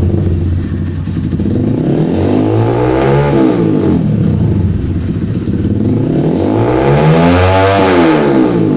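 KPR 200 motorcycle with an aftermarket SC Project exhaust, revved up twice: a shorter rise and fall about three seconds in, then a bigger, longer rev near the end, dropping back toward idle between them.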